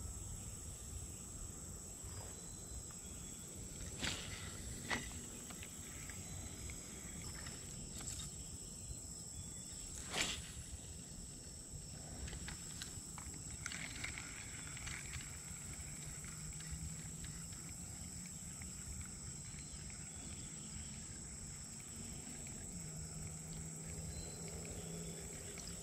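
Insects trilling in a steady, high-pitched drone, with a few sharp clicks about four, five and ten seconds in.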